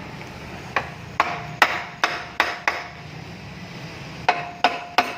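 Hammer blows on metal transmission parts during teardown: a run of about six sharp strikes, a pause, then three more, several leaving a short metallic ring.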